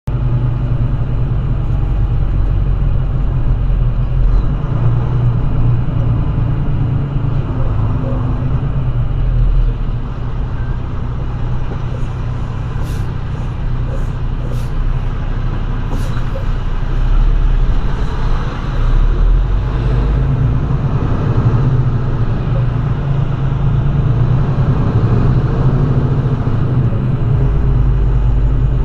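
Semi-truck running down the road: a steady, loud low engine and road rumble, with a few short sharp clicks about twelve to sixteen seconds in.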